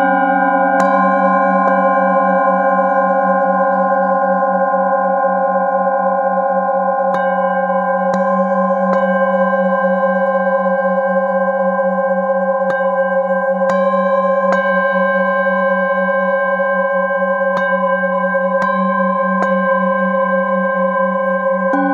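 Metal singing bowls ringing together in a sustained, layered drone, the low tone wavering slowly. A bowl held in the palm is struck lightly with a mallet every few seconds, and each strike adds a fresh bell-like tone to the ring.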